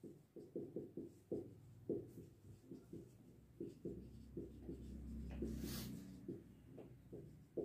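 Felt-tip marker writing on a whiteboard: a faint, irregular run of short scratchy strokes as Devanagari letters are written, with a brief hiss about five and a half seconds in.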